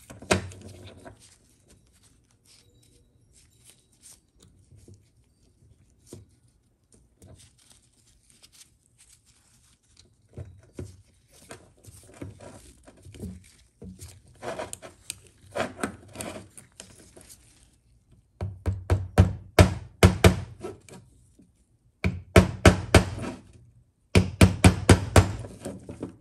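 Hammer tapping a pin into the drilled hole through a TH350 transmission governor's gear and shaft to stake the gear. Quiet clicks of parts being handled on a steel plate come first, then three runs of sharp metal taps at about four or five a second in the second half.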